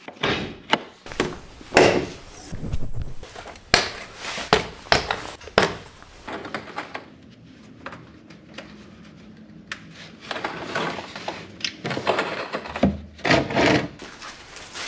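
Irregular clunks, knocks and scrapes of hands and tools working on a car: the bonnet release and engine cover, then the oil drain pan and drain plug underneath. The knocks come in two clusters, with a quieter stretch between them.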